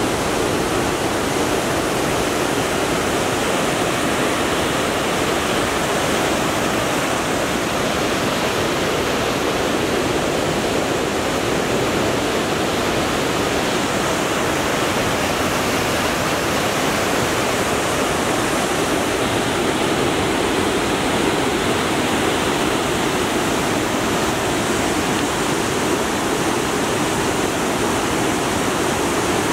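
Fast mountain river rushing in whitewater over rocks, a steady, unbroken rush of water.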